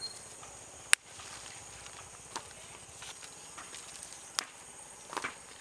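Scattered clicks and soft crackles of soil and roots as taro corms are pulled off an uprooted plant by hand. The sharpest click comes about a second in, with a few fainter ones after.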